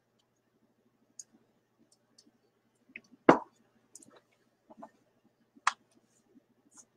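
A few scattered faint clicks and small handling noises, with one sharper, louder knock about three seconds in.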